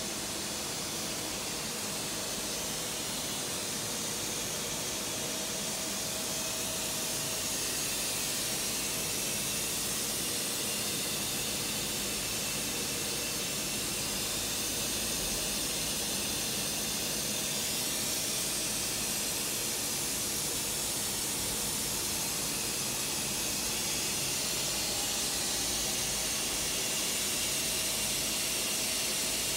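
Steady machine noise: an even hiss with a faint steady hum, and no press strokes or impacts.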